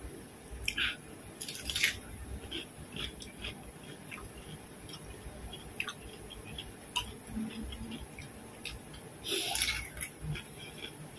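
A person biting and chewing raw cucumber: louder crisp bites around two seconds in and again near the end, with smaller wet chewing clicks between.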